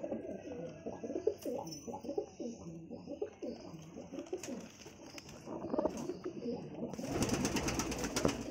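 Domestic pigeons cooing in a loft: many low, rising-and-falling coos overlapping. About seven seconds in, a louder burst of rapid rustling lasts to the end.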